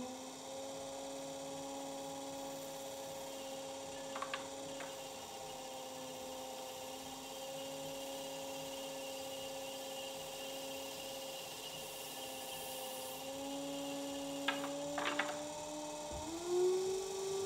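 Electric pottery wheel's motor humming steadily as the wheel head spins, its pitch stepping up twice near the end as the wheel is sped up. A few faint clicks come about four seconds in and again near the end.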